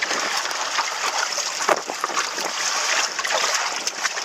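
Steady wind noise on the microphone, with water splashing and sloshing in the shallows.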